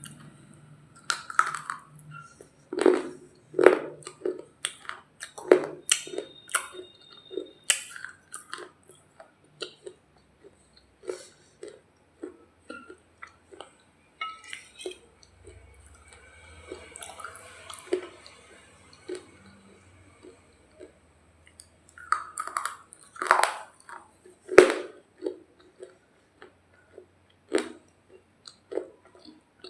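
Close-miked crunching and chewing of a hard, dry roti: sharp crunchy bites in quick runs, quieter chewing in the middle stretch, and a few of the loudest crunches near the end.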